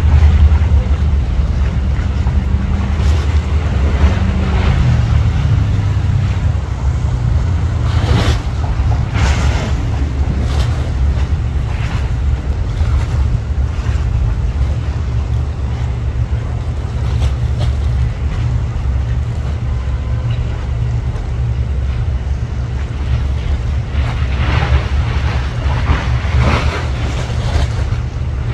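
Low, steady rumble of a high-speed catamaran ferry's diesel engines and waterjets as it pulls away from the berth, the pitch easing down about five seconds in. Water noise and gusts of wind buffet the microphone, most strongly around eight to ten seconds in and again near the end.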